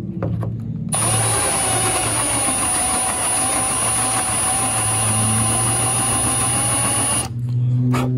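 Cordless drill with a large twist bit running slowly and steadily for about six seconds, starting about a second in and stopping near the end, with a steady high whine. The bit is lightly reaming a drilled rivet hole in an aircraft door frame to recess it.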